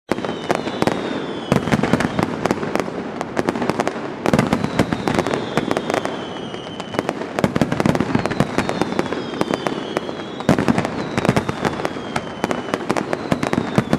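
Fireworks display: dense, rapid bangs and crackling of aerial shells bursting, with heavier volleys every few seconds. Faint high whistles glide down in pitch several times.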